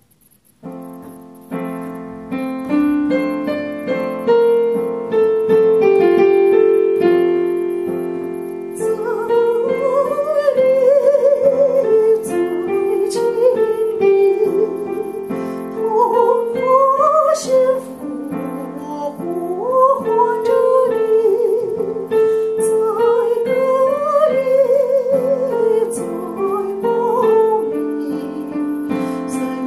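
Piano/keyboard backing track playing a slow ballad introduction. From about nine seconds a woman sings a Chinese ballad over it with a wavering vibrato.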